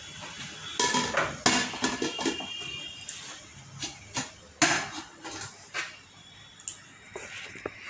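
Metal pots and pans clanking: several sharp knocks with brief ringing after them, the loudest about a second and a half in and another near the middle, as a dark pan is set upside down over a steel bowl as a lid.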